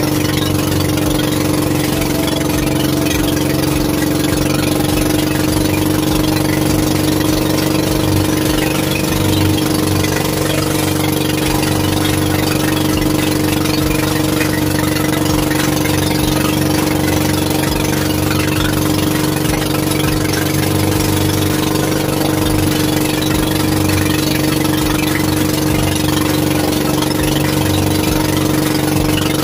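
Small fishing boat's engine running steadily, its pitch holding level throughout.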